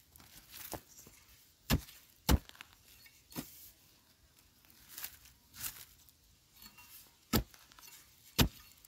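Hand digging tool chopping into dry, stony soil: a series of sharp strikes, unevenly spaced at about one a second, as the hole around a wild yam tuber is dug deeper.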